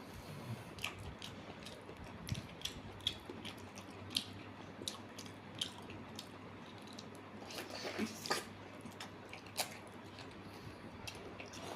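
A person chewing and biting pork up close, with irregular wet smacks and clicks of the mouth, a few each second.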